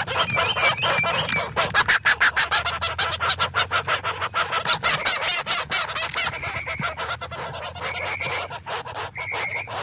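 Hen clucking in a fast run of short calls, giving way about six seconds in to sparser clucks and a few longer, drawn-out squawks.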